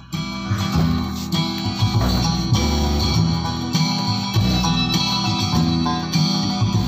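Guitar music playing through a repaired Universal home theater system's subwoofer and satellite speaker, with heavy bass; it gets much louder right at the start as the volume knob is turned up. The subwoofer cabinet is vibrating because its back panel is not yet screwed on.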